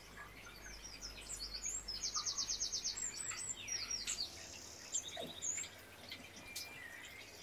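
Small birds chirping, with a fast, high trill of rapidly repeated notes about two seconds in.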